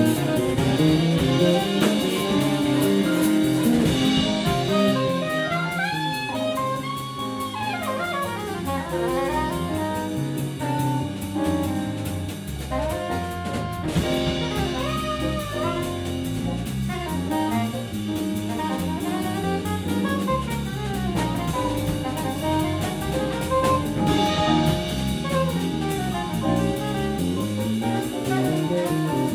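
Jazz band playing an instrumental number, a saxophone carrying the melody over a drum kit.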